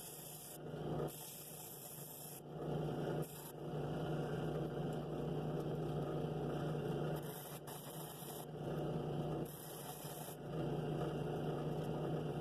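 Drill press running steadily with a sanding drum in its chuck, a constant motor hum, with stretches of scratchy sanding on and off as the inside of a cherry wood bowl is pressed against the spinning drum.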